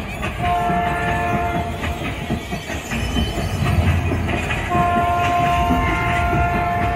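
Fairground ghost-train ride's train horn sounding twice, a short blast about half a second in and a long held blast near the end, over the steady rumble of the ride's train cars running.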